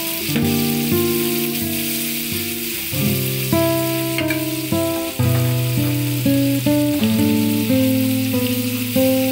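Meat, garlic and chili sizzling as they fry in oil in a metal wok, a steady hiss, under background music of a melody in notes that start sharply and fade.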